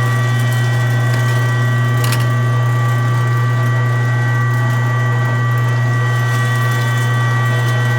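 LEM #22 BigBite 1 HP electric meat grinder running steadily: a strong low motor hum with a few steady higher whining tones above it, and a brief click about two seconds in.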